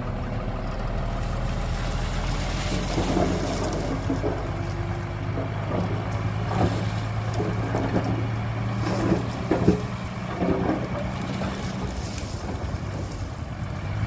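Heavy diesel engine of earthmoving machinery running steadily, with scattered short squeaks and knocks in the middle of the stretch.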